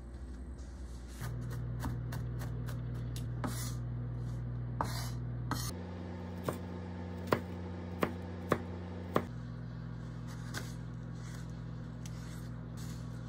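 Chef's knife chopping carrot on a wooden cutting board: quick light taps of the blade on the board, then a handful of louder single strokes a little past the middle, then more scattered cuts. A steady low tone sits underneath and shifts pitch twice.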